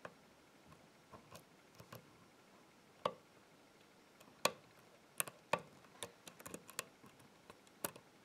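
Lock pick working the pin stack of a padlock's Euro cylinder under tension: irregular metallic ticks and clicks of pins and pick, thickest around the middle.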